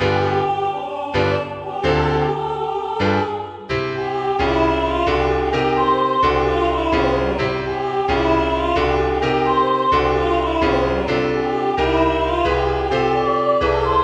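Score playback of an SAB choir arrangement's alto part: a melody line on a synthesized choir 'aah' voice over piano accompaniment. For the first few seconds the piano plays short detached chords; after that a busier passage runs on with a steady bass under the moving melody.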